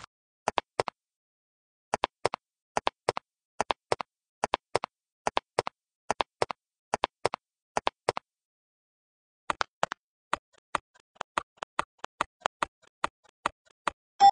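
Footsteps sound effect: short, hard taps in pairs, about one pair a second, like steps climbing stairs. After a pause of about a second past the middle, they come back quicker and lighter.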